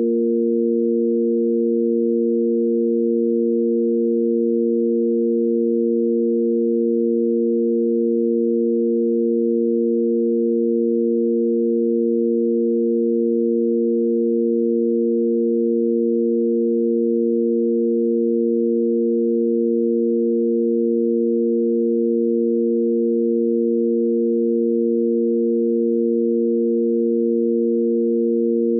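Sine-wave tanpura drone in A#: three pure sine tones held steady together, the root A#, the fifth (F) above it, and the A# an octave up, a constant pitch reference for singing in tune.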